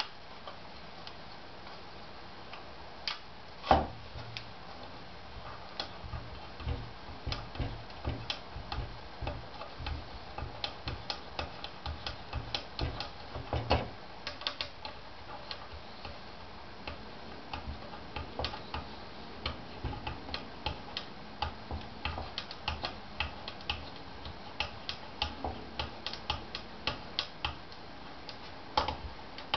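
Small irregular clicks and ticks of hand assembly: bolts and a small corner bracket being fitted to a 3D printer's bed plate with fingers and a hex key. There is a sharper knock about four seconds in and another near fourteen seconds.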